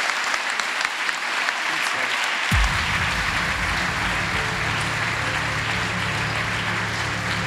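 An audience applauding steadily. About two and a half seconds in, music with a low bass note comes in under the applause.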